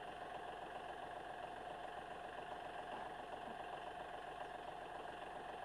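John Deere 5065E tractor's diesel engine idling steadily, an even, unchanging hum.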